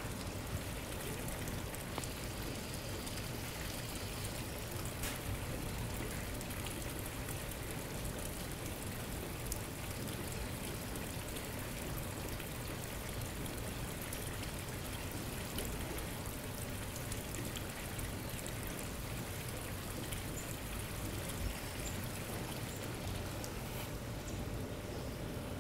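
Steady hiss of falling or running water, even throughout, with a few faint ticks here and there.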